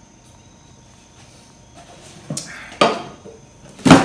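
Three knocks of hard objects being handled and set down, after a couple of seconds of quiet, with a little rustling between them; the last knock, near the end, is the loudest.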